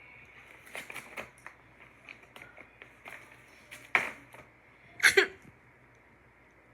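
A bag crinkling and crackling in short irregular bursts as a cat paws at it and tears it, with the loudest crackles about four and five seconds in.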